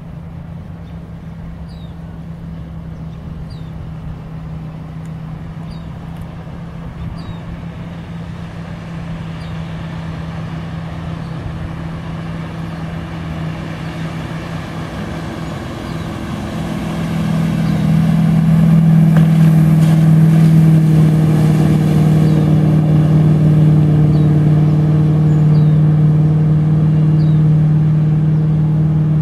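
Ski tow boat's engine running at a steady pitch as it pulls a slalom skier along the lake, gradually growing louder and becoming much louder about 18 seconds in.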